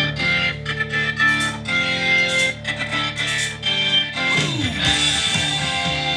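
Rock music with distorted electric guitar, played from a CD through Panasonic SB-550 stereo speakers; about four seconds in, a falling pitch sweep leads into a new section.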